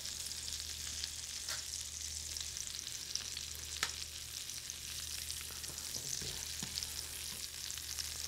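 Beef tenderloin fillet sizzling in butter in a stainless steel sauté pan: a steady frying crackle. A couple of sharp metal clicks from tongs against the pan.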